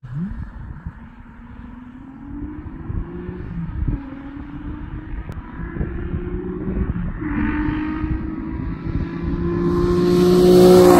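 Nissan 350Z's 3.5-litre V6 through a Soho single-exit exhaust with resonated test pipes and Y-pipe, accelerating toward the listener. The pitch climbs through each gear, with two upshifts about four and seven seconds in, and the note grows steadily louder as the car approaches.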